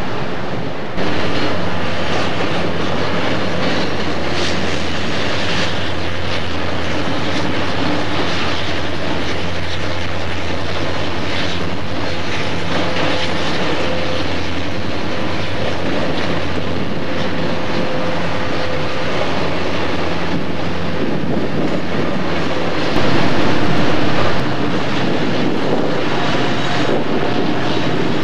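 Freight train's covered and coal hopper cars rolling past, a steady rumble of steel wheels on rail over a constant low drone. The sound gets louder for a moment a little before the end.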